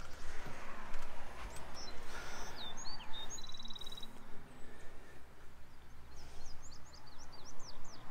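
Wild birds chirping outdoors: a few calls and a short buzzy trill a few seconds in, then a quick run of chirps near the end, over a steady low rumble.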